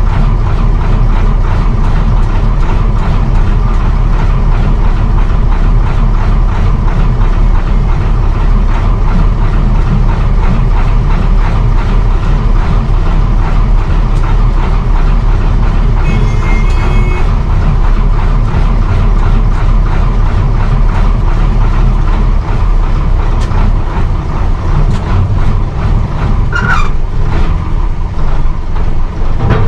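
Cabin noise inside a 1959 Bedford SB1 coach on the move, its diesel engine running steadily. A brief squeal comes near the end as the coach eases off.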